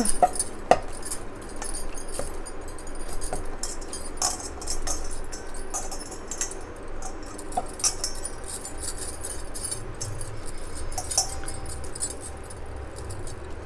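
Hands squeezing and pinching soft spinach chapati dough into balls in a steel bowl. The bangles on her wrists jingle in short bursts, with small taps of dough and hands against the bowl.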